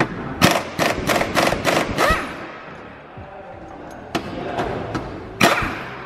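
Sharp knocks from tool work on a car: six in quick succession over the first two seconds, then a weaker one and a loud one later on, over background music.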